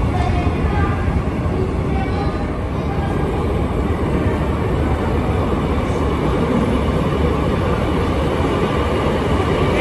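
Metro train moving through the station, a steady rumble of wheels on rail and running gear.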